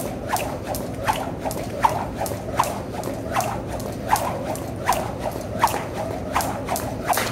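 Jump rope slapping the floor in a steady rhythm, a sharp slap about every three-quarters of a second with lighter taps in between.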